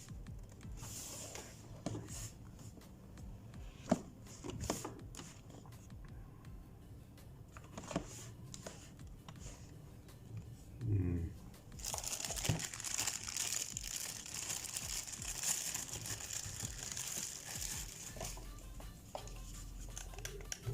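Packaging being handled and unwrapped: scattered light clicks and knocks, then from about halfway a steady crinkling rustle.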